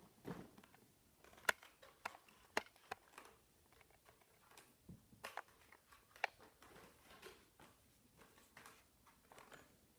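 Scattered light clicks and taps of a cardboard toy box being handled, a dozen or so irregular small knocks.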